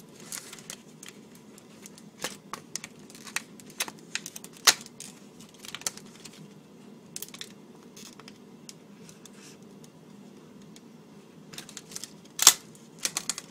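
Paper being sliced and handled with a Magicutter safety cutter: scattered sharp clicks and short crinkling rustles, with a loud click about four and a half seconds in and another near the end.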